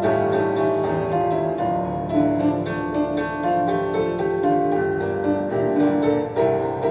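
Piano accompaniment playing an instrumental interlude between verses of a slow song: a flowing run of notes over sustained chords.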